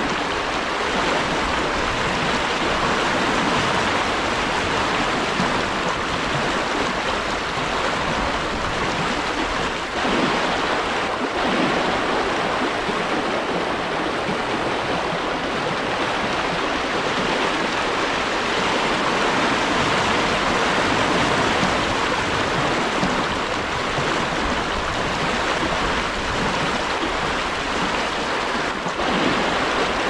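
River water rushing over shallow, choppy riffles: a steady, even rush with slight surges about a third of the way in and near the end.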